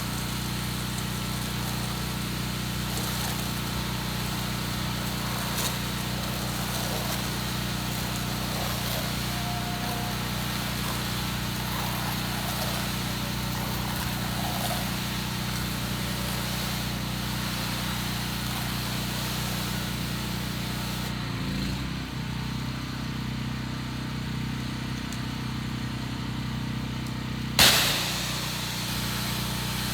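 Pressure washer running steadily while its wand sprays plain water onto house siding from a distance, rinsing off sodium hypochlorite. About three quarters of the way in the spray stops for several seconds while the engine keeps running, then a short sharp burst and the spray starts again.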